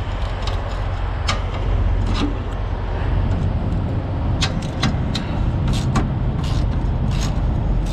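Steady low rumble of an idling truck engine, with a dozen or so sharp metallic clicks at irregular spacing from a hand wrench working a rusted-looking mud-flap bolt loose.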